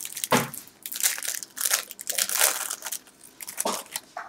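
Plastic wrapper of a trading card pack crinkling in irregular bursts as it is pulled open by hand.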